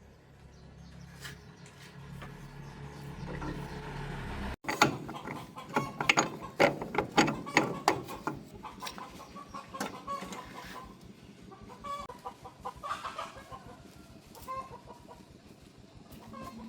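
A low steady hum swells for the first few seconds, then gives way to a flurry of sharp metal clicks and clinks of hand tools at work on a tractor. A hen clucks among them.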